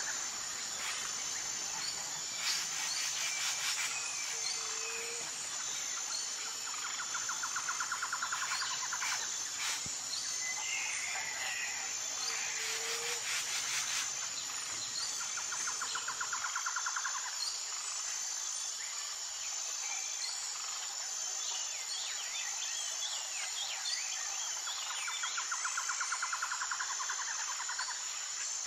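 Outdoor insect and bird ambience: a steady high-pitched insect drone, with bursts of rapid trilling every several seconds and scattered short bird chirps. A low background rumble drops away abruptly just past halfway.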